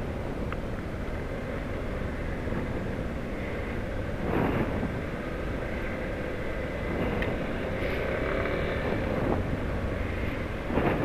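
Yamaha trail motorcycle riding along a rain-wet street: steady engine running under a haze of wind and tyre noise, with a short louder rush about four seconds in and again near the end.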